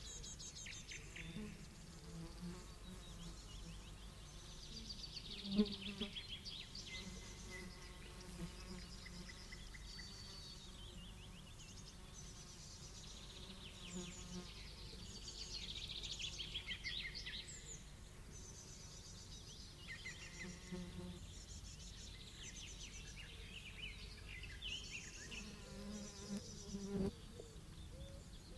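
Meadow ambience: many birds singing with short chirps and trills, and insects buzzing, their buzz coming and going as they pass. A short sharp knock sounds about six seconds in.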